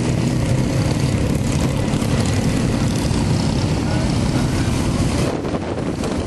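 Many motorcycle engines running together in a steady, dense rumble as bikes ride off one by one. The low rumble thins briefly about five seconds in.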